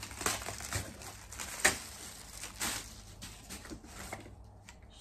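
Thin plastic bag crinkling and rustling as a wrapped mug is unwrapped by hand, with sharp crackles, the loudest about two seconds in. It dies away about four seconds in.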